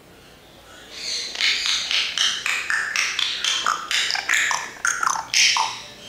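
African grey parrot giving a rapid run of short chirps and whistled notes, jumping from pitch to pitch with a few falling slides, starting about a second in.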